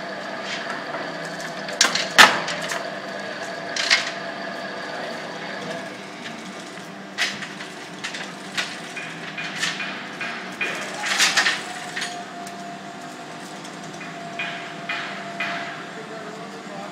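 Sharp knocks and clanks as a steel cylinder liner, shrunk in liquid nitrogen, is handled on its chain hoist and lined up with the locomotive's cylinder block. The loudest strikes are a pair about two seconds in, with more scattered through, over a steady workshop hum.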